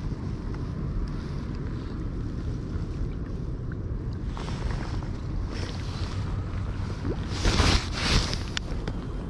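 Wind buffeting the microphone: a steady low rumble, with two brief louder rushes of noise about seven and a half and eight seconds in.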